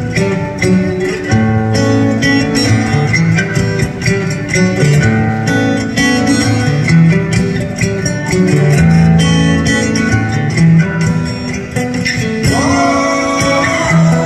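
Solo acoustic-electric guitar played through a concert PA, a run of plucked notes and strummed chords over low ringing bass notes, heard from the audience on a phone recording.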